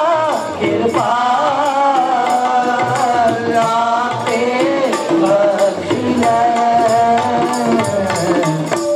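Sikh Gurbani kirtan: voices singing a shabad to two harmoniums, with tabla keeping time.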